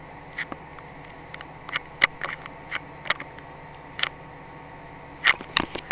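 Handheld camera handling noise: scattered short clicks and taps, about ten of them, over a steady low electrical hum, with the loudest pair near the end.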